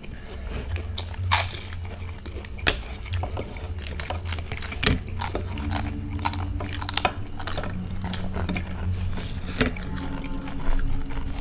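People eating a meal: chewing and wet mouth sounds, with many short sharp clicks and taps of dishes, over a low steady hum.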